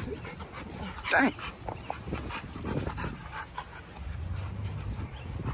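American bully dogs whining and yelping excitedly as they jump for a stick. The loudest cry comes about a second in and falls sharply in pitch, with a few shorter cries later.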